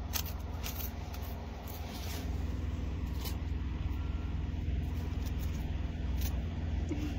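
Doberman pinschers licking an ice cream cone held in a hand: short, irregular licking clicks scattered through, over a steady low rumble.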